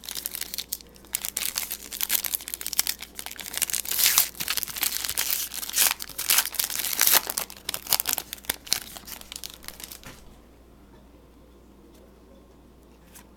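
Crinkling and rustling of trading cards and their pack packaging being handled and shuffled, in quick sharp bursts that stop about ten seconds in.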